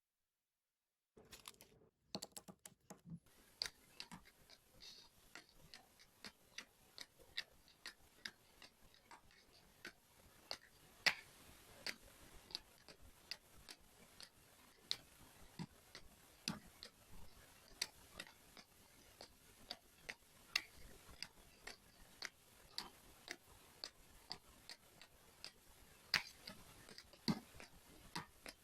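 A diamond painting pen tapping small resin drills onto the sticky canvas: soft, irregular clicks and taps, about one or two a second, starting about a second in.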